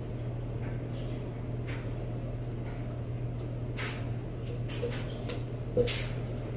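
Steady low hum of a quiet room with a few soft clicks and light knocks in the second half, one sharper knock near the end.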